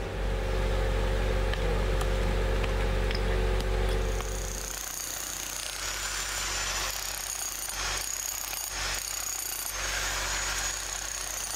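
A steady engine hum from the service truck, then, from a little under halfway through, a handheld jackhammer with a chisel bit hammering continuously as it breaks out old concrete and rubble inside a freshly cut manhole ring, with a steady high whine over the hammering.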